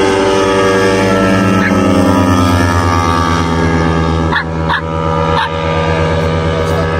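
Large piston engine of a giant radio-controlled Jungmeister biplane running steadily, its pitch sinking slightly over the first few seconds. A dog barks three times, about four to five and a half seconds in.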